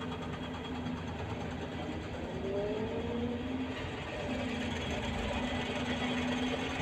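Excavator working: its diesel engine runs steadily under load, and a thin hydraulic whine rises in pitch about two and a half seconds in.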